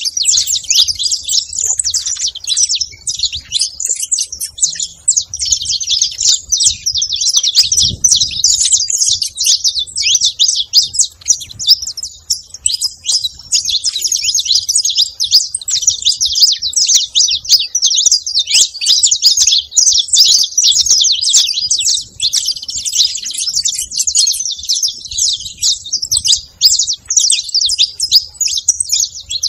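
A flock of saffron finches chattering: a dense, continuous mass of high chirps from many birds at once.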